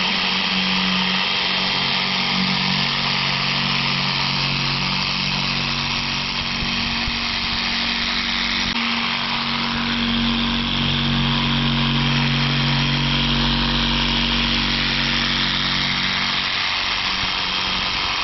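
A DeWalt reciprocating saw runs continuously under load, cutting through a pumpkin. It gives a steady motor hum whose pitch shifts slightly as the cut goes on.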